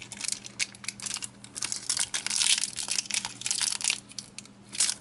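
Foil booster-pack wrapper crinkling and crackling as it is handled and crumpled, in quick irregular crackles that thicken into a dense stretch around the middle.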